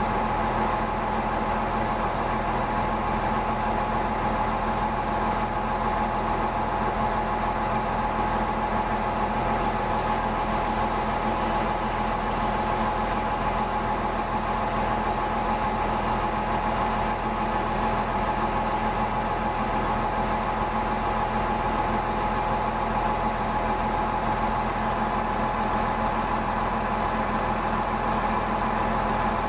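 Bulldozer's diesel engine running steadily, with a constant whining tone over the engine noise and no change in speed.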